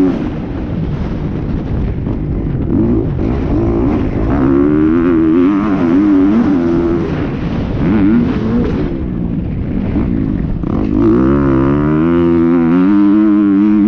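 Motocross dirt bike engine revving hard and backing off over and over as it is ridden around the track, the pitch climbing through each run and dropping when the throttle is shut. Near the end it holds a steadier, higher run.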